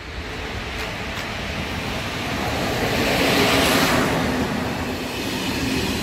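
Passenger train hauled by an electric locomotive passing through the station without stopping: a rush of wheel and rail noise that builds, is loudest about three and a half seconds in as the locomotive goes by, then carries on as the carriages roll past.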